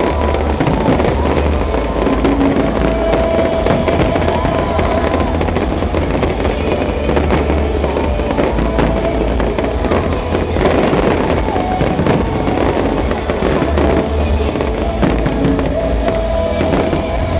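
Aerial fireworks bursting in a dense, continuous barrage of bangs.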